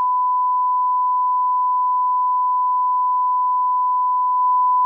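Censor bleep: a single steady, high beep tone held unbroken in place of all other sound, blanking out the speech of an argument.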